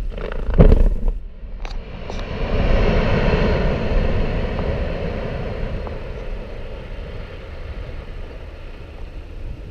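Limestone quarry blast heard from about half a mile away: a sharp boom about half a second in and two fainter cracks, then a long rolling rumble that swells and slowly fades over several seconds.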